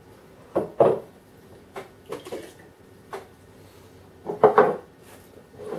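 Drinking glasses being handled and set down on a wooden table: a handful of short clunks and knocks, the loudest about a second in and a pair around four and a half seconds in.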